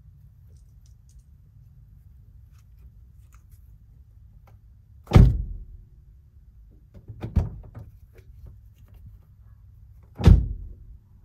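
Car doors being shut: three heavy thunks a few seconds apart, the first and last loudest, the middle one softer with a few lighter clicks around it.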